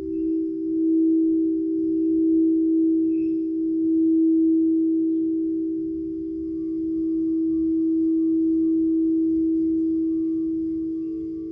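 Frosted crystal singing bowls ringing with a steady, sustained tone as a mallet is run around the rim. Two close pitches beat slowly against each other while the sound swells and ebbs, and a faint higher tone joins about halfway through.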